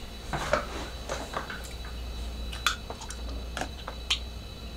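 Scattered light clicks and taps of someone shifting and handling things at a desk, over a steady low hum and a faint high whine.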